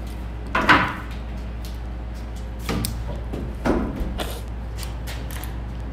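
Hard plastic clothing security tag being worked and prised at by hand: a few short scraping, rustling bursts, the loudest about half a second in, with light clicks between, over a steady low hum.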